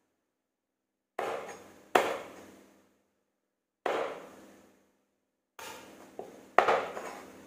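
Cleaver chopping the claw tips off raw chicken feet on a bamboo cutting board: about six sharp chops at uneven intervals, each a knock of the blade into the board with a short ringing tail, the loudest about two seconds in and near the end.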